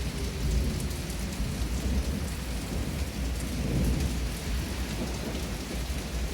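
Steady rain with low rolling thunder during a tornado-warned thunderstorm. A faint outdoor tornado siren is winding down, its single falling tone fading out about a second in.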